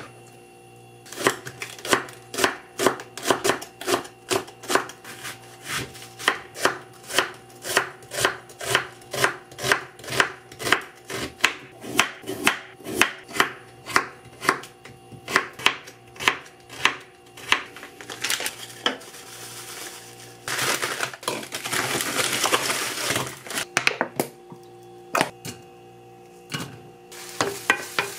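A chef's knife chopping vegetables on a wooden cutting board, a steady knock about three times a second. Later there are a few seconds of rushing noise, then a few more knocks near the end.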